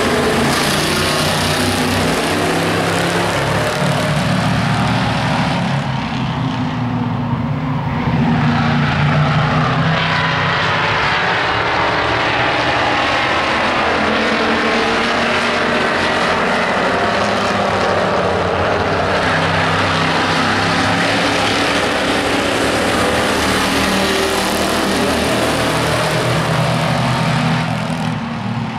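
A pack of stock pickup trucks racing around an oval track. Their engines run loud and continuous, the revs rising and falling as the trucks pass and go through the turns.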